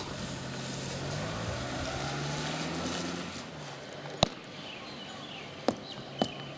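Boots stamping hard on a wet parade-ground surface during drill marching: a single loud stamp about four seconds in, then steps about half a second apart near the end. A low hum runs under the first few seconds.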